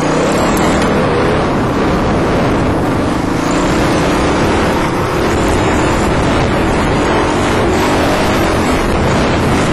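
Dirt bike engine running steadily along a trail, heard from the rider's helmet-mounted camera with rushing noise over it; the engine note drifts up and down with the throttle.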